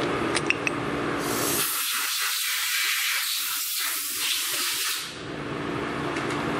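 Workshop background hum with a few light clicks, then a loud, steady hiss starting about a second in and cutting off about five seconds in.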